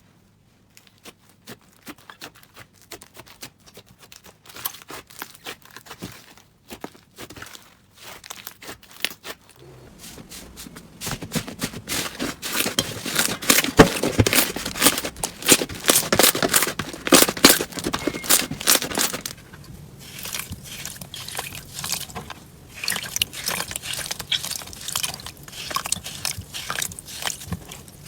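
Hands squeezing and pressing slime, giving rapid crackling and popping clicks. The clicks grow louder and denser about ten seconds in, ease off briefly near twenty seconds, then carry on.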